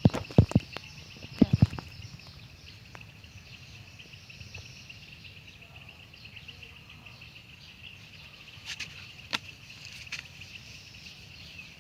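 Insects, cricket-like, trilling steadily in a fast, even pulse. Several heavy thumps come in the first two seconds, and a few sharp clicks come near the end.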